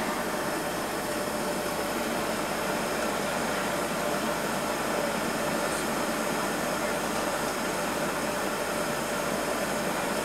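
Steady roaring hiss of a glassblower's furnace, unbroken and even, while a hot glass piece is turned on the pipe.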